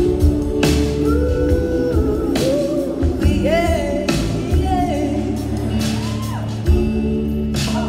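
Live blues-rock band playing, recorded from the audience: a woman sings lead with wavering, gliding notes over electric guitar, bass, a drum kit and backing singers.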